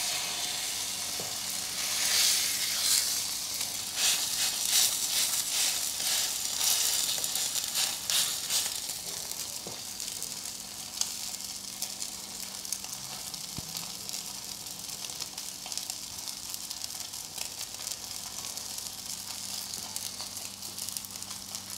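Wagyu steak sizzling on a hot plancha as its fat renders out, almost as if deep-frying. Crackling pops are busiest and loudest for the first several seconds, then it settles into a steadier, quieter sizzle.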